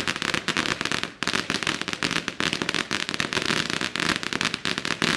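A string of firecrackers going off in a rapid, continuous chain of sharp bangs, with a brief lull about a second in.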